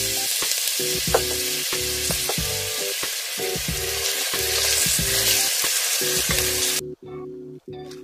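Diced onions frying in hot oil in a pot, a steady loud sizzle as they are stirred with a wooden spatula. The sizzle cuts off about a second before the end.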